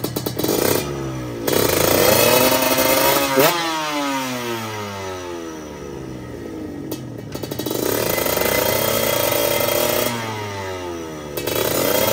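Two-stroke Kawasaki Ninja drag-bike engine revving under the rider's throttle. The revs climb to a peak about three seconds in and fall away slowly, climb again around eight seconds, drop, and rise once more near the end.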